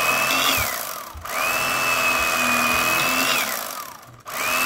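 Small electric kitchen appliance motor used for slicing, run in bursts: a steady whine that is switched off twice, each time falling away in pitch to a stop before the motor starts again.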